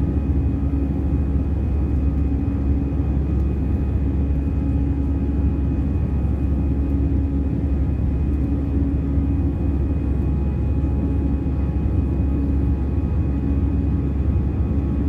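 Cabin noise inside an Airbus A320 airliner under power after takeoff: the turbofan engines and rushing air make a steady deep rumble with a constant hum over it.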